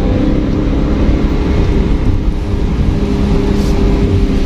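Vehicle engine and road noise at highway speed: a steady drone with a low rumble, heard from inside the moving vehicle.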